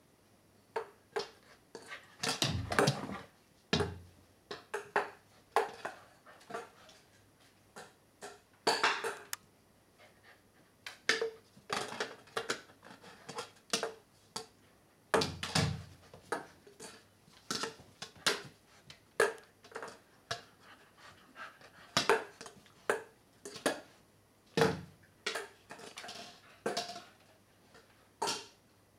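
A puppy knocking about a hollow plastic bowling-pin toy, which clatters against the wooden wardrobe door and floor in quick, irregular knocks, with a few heavier thumps.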